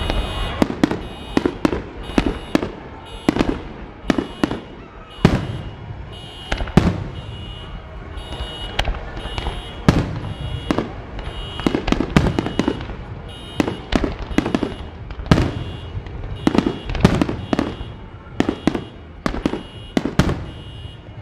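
Aerial firework shells bursting overhead in a long, irregular series of sharp bangs, sometimes several in a second, over a rumbling background.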